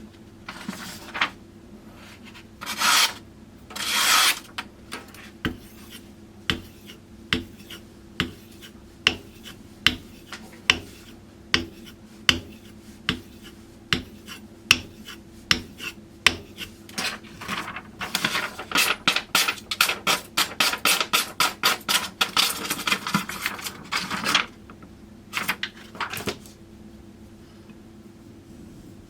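Kitchen knife blade scraped across a whetstone, a Shapton Kuromaku #12000 ceramic stone: two longer drawn scrapes, then single strokes at a slow even pace, then a quick run of short back-and-forth strokes, tapering off to a few last strokes before stopping.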